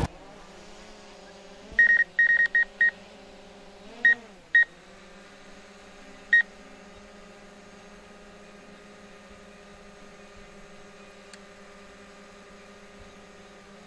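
Short high-pitched electronic beeps: a quick run of about five, then two more and a single one a few seconds later, over a faint steady electrical hum.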